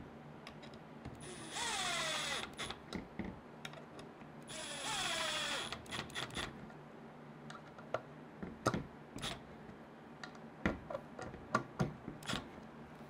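Cordless drill driving screws into the stand's metal plate in two short runs, its pitch falling during each run as it slows. Scattered clicks and knocks of the drill and plate being handled follow in the second half.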